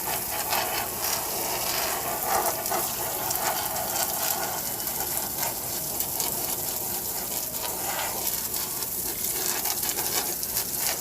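Water from a hose pipe spraying under pressure onto a window AC's mesh air filter, a steady spatter as the dust is washed out.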